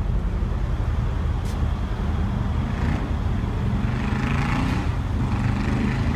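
Mercedes-Benz CLS63 AMG's twin-turbo V8 idling with a steady low rumble.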